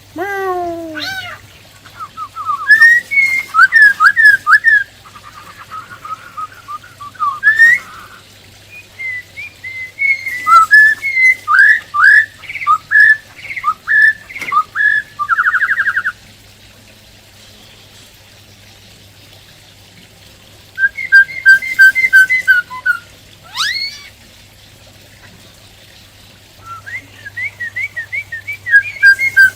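Black-throated laughingthrush singing: loud bursts of varied whistled phrases, with slurred glides and rapid runs of repeated notes, broken by pauses of a few seconds.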